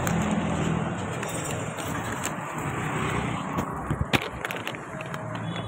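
Street traffic noise with a steady engine hum, and a sharp click about four seconds in.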